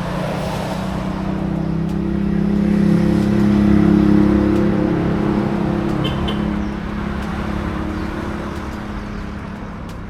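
An engine's steady hum that swells to a peak about four seconds in and then slowly fades, like a motor vehicle passing.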